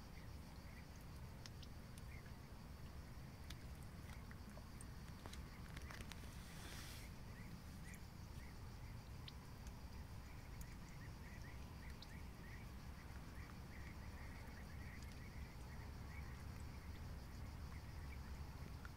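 Koi and goldfish taking floating feed pellets at the pond surface: faint scattered pops and smacks over a low steady outdoor rumble, with a brief hiss about six to seven seconds in.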